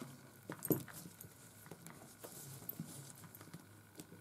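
Faint, irregular light clicks and taps of multimeter probes and a small connector lead being handled, the probes touching the lead's pins during a continuity check; the strongest couple of clicks come a little under a second in.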